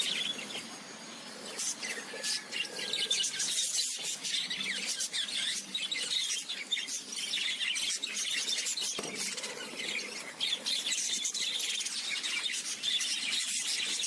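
Budgerigars chattering: a steady stream of quick, high chirps and warbles.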